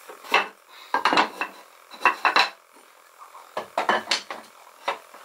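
Wooden knocks and clatter as pine frames are set down and shifted against a wooden tabletop and each other, in several quick clusters about a second apart.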